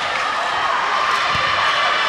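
Steady din of a busy indoor sports hall: many players' and spectators' voices blending together in a reverberant hall, with a dull thud about a second and a half in.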